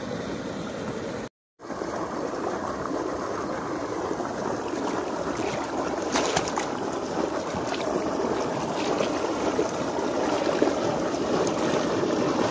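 Fast water rushing along a narrow earthen irrigation channel, a steady splashing flow that grows louder toward the end. The sound cuts out completely for a moment about a second and a half in.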